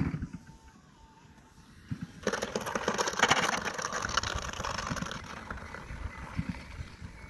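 A radio-controlled Me 163 Komet scale model touches down and slides along the asphalt runway on its belly, scraping for a few seconds and fading as it slows to a stop. A brief thump comes right at the start.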